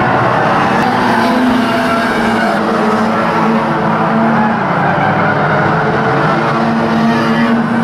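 A pack of banger racing cars running together round a shale track, their engines making a loud, steady, mixed drone of several wavering tones.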